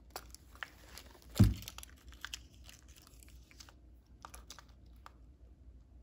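Handling noise from a handmade paper junk journal with a fabric-covered spine: papers and cover rustling with small clicks and crackles. A single dull thump about a second and a half in, the loudest sound, as the book knocks on the table.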